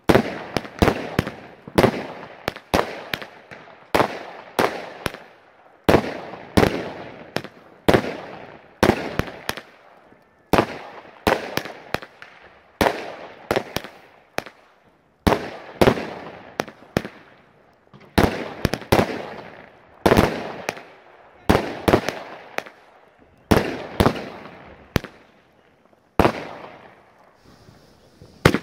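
A consumer fireworks battery firing shot after shot: a sharp bang about every second, each trailing off in echo and crackle. The shots thin out near the end.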